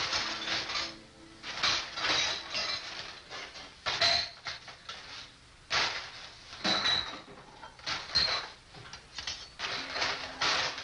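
Irregular clatter and clinks of dishes, glass and utensils being handled, as someone rummages through kitchen things, with some sharp knocks among them.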